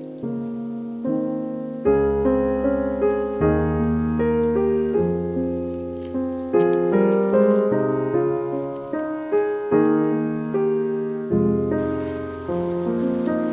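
Gentle background piano music: a slow melody of struck, fading notes over chords, with bass notes coming in about two seconds in.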